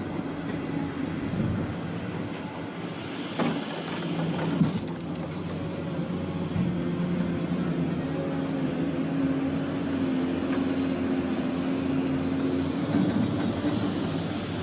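Log loader's diesel engine running steadily as it handles logs, with two sharp knocks about three and a half and four and a half seconds in.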